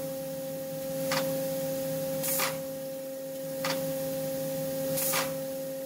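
Industrial machine running with a steady pitched whine, cut by a short sharp noise four times, about every 1.4 seconds, as the machine cycles and its actuator plate presses the roller of a limit switch.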